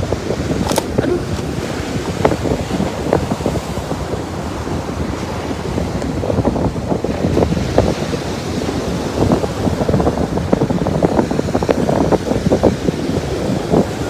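Sea surf washing onto a pebble beach, with wind buffeting the microphone in uneven gusts.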